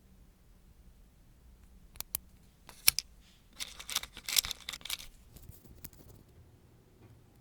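Small nail-art tools and materials being handled close up: a few sharp clicks, then about a second and a half of scratchy, crackly rustling, then a few light ticks.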